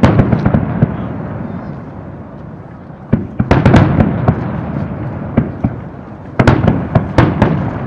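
Aerial firework shells bursting in three volleys about three seconds apart. Each volley is a loud bang followed by a string of sharp crackling pops and a low rumble that trails off.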